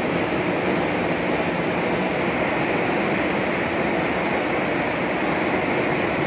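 Heidelberg CD 102-6+L six-colour sheetfed offset press with coating unit running in production, a steady, even mechanical noise with no let-up.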